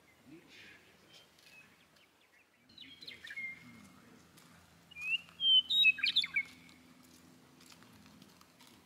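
A bird chirping: a few short calls about three seconds in, then a louder run of chirps and quick rising and falling whistles from about five to six and a half seconds in.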